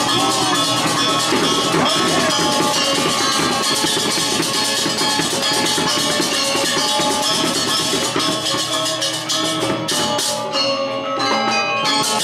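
Balinese gamelan playing fast, with rapid interlocking strokes on bronze metallophones over steady ringing gong tones, accompanying a Baris dance. The highest metallic strokes drop out briefly about ten seconds in, then resume.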